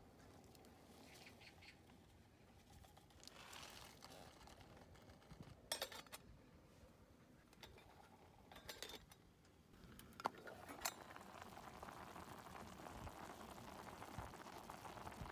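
Faint sharp metal clinks of a stainless pot lid being handled, then, from about ten seconds in, a steady soft bubbling of instant ramyeon noodles boiling in the pot.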